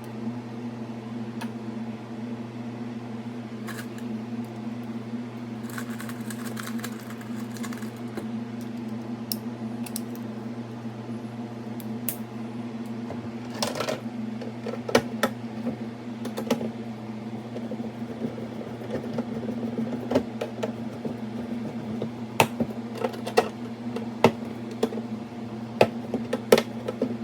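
A steady low electrical hum, with scattered light clicks and taps of small parts being handled that grow more frequent from about halfway through.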